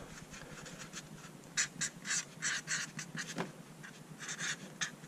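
Felt-tip marker writing on cardboard: a run of short scratchy strokes, with a pause partway through before a few more.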